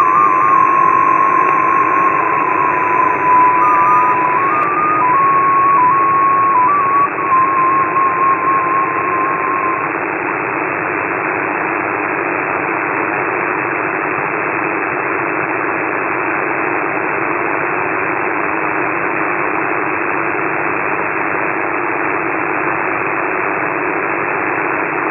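Shortwave radio in upper sideband: the XPA2 digital number station sends a tone that hops between a few close pitches, ending about ten seconds in. Steady receiver hiss runs underneath and carries on alone afterwards.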